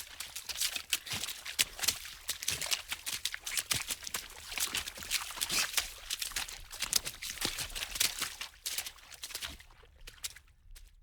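Water splashing fast and irregularly, a quick jumble of small splashes that thins out and stops near the end.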